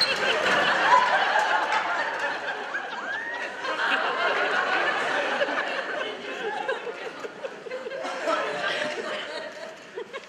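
Audience laughing and chuckling, many voices at once.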